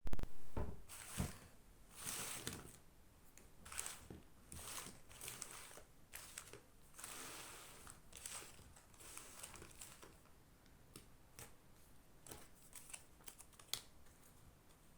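Slime being squeezed and mixed by hand: irregular sticky crackles, clicks and pops in short bursts, loudest in the first second or so and lighter later on.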